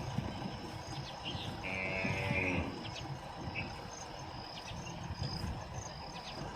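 Outdoor ambience of insects chirping steadily, with one animal call lasting about a second, about two seconds in.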